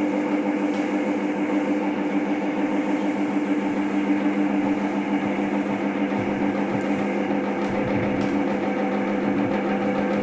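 Air conditioner running at full fan speed, a steady hum with several held tones.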